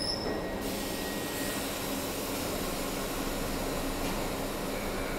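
R62 subway train rolling slowly to a stop alongside the platform: a steady hum and hiss, with a brief high brake squeal at the start and a higher hiss coming in about a second in.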